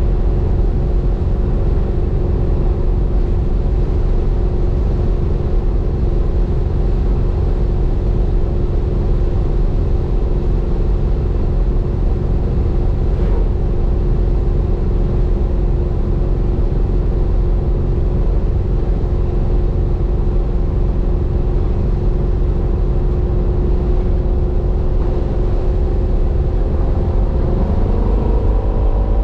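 1967 Chevy Nova's engine, running on a FiTech fuel-injection system, holding at a steady speed with a deep, even sound. Near the end its pitch starts to rise as the revs climb.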